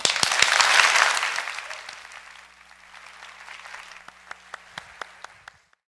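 Audience applauding: loud at once, then thinning out to a few scattered claps, and cut off suddenly near the end.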